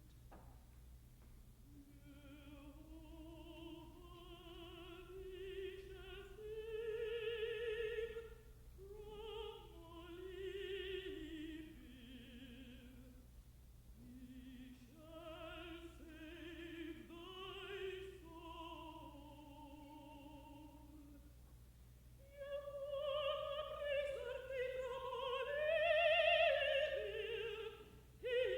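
A contralto singing slow, sustained phrases with wide vibrato, accompanied by orchestra, growing louder and fuller near the end. A steady low electrical hum runs underneath, and the sound is cut off above the mid treble, as in an old broadcast recording.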